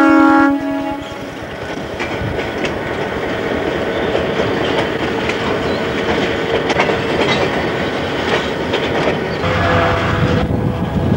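CN GP9 diesel locomotive's horn ends a blast about a second in, then its two-stroke EMD diesel engine runs steadily as it rolls past pulling a caboose and freight car, with wheels clicking over the rail joints.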